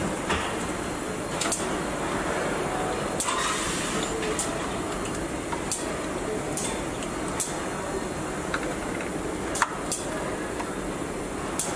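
Car assembly-line factory noise: a steady machinery hum with scattered sharp clicks and knocks of tools and parts, and a short hiss a little over three seconds in.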